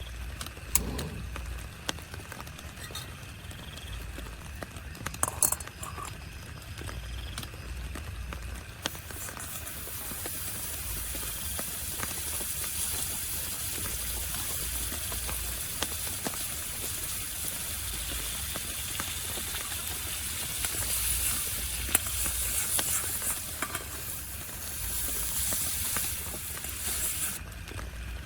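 Food frying in a pan: a dense, steady sizzle that starts about nine seconds in and cuts off near the end. A few clicks and clinks of utensils come earlier.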